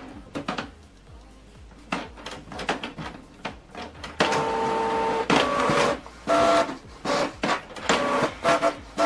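Canon PIXMA TS7650i inkjet printer printing a page. A few clicks and ticks come as it starts up; from about four seconds in there is a steady pitched motor whine, then a series of short pitched runs with brief gaps as the print head passes back and forth and the sheet feeds out.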